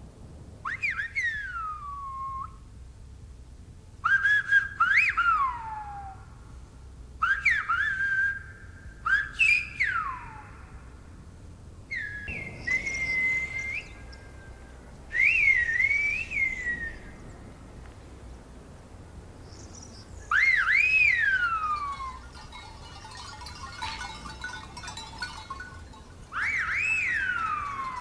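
Silbo Gomero, the whistled language of La Gomera: a series of loud whistled phrases, each a quick rising and falling glide, separated by pauses of one to several seconds.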